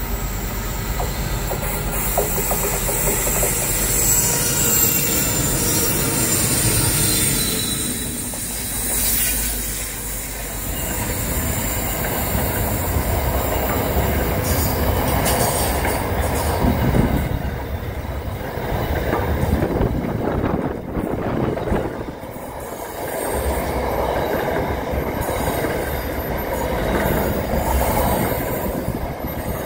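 Freight train passing close by: the locomotive comes up first, then a long string of wagons rolls past with a steady, loud rumble and clatter of wheels on rail. There is high-pitched wheel squeal early on and again near the end.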